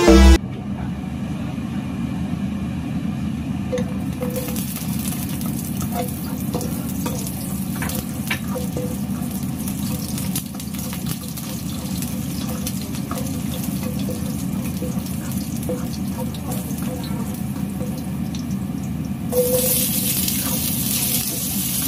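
Hot oil in a wok sizzling faintly with scattered small pops over a steady low rumble. About 19.5 s in, sliced celery stalks drop into the oil and a much louder, steady sizzle takes over as they start to stir-fry.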